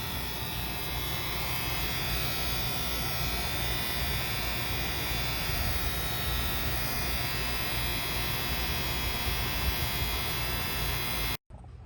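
Air-conditioning unit's contactor buzzing steadily while pulled in, a loud electrical buzz over a low hum. The technician takes it for a harmless relay buzz from a loose little cap on the contactor.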